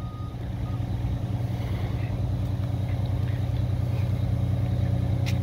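A nearby engine running at a steady idle: a low, even hum that grows slightly louder, with a short click near the end.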